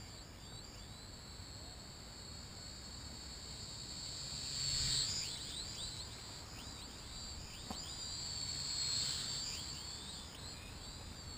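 High-pitched whine of a Propel Cloud Rider toy quadcopter's motors flying at a distance, the pitch swooping up and down as the throttle changes. It grows louder about five seconds in and again near nine seconds as the drone passes nearer.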